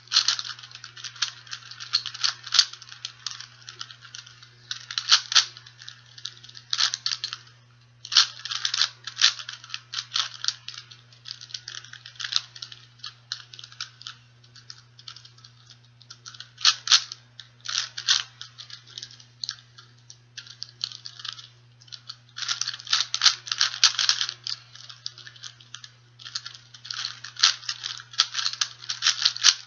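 A 4x4x4 speed cube being turned by hand: bursts of rapid plastic clicking from quick layer turns, broken by short pauses, while the edges are paired to reduce it to a 3x3. A low steady hum runs underneath.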